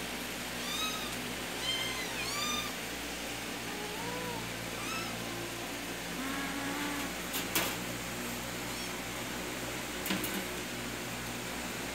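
Persian kittens mewing: about six short, high-pitched meows in the first seven seconds, followed later by a couple of sharp clicks.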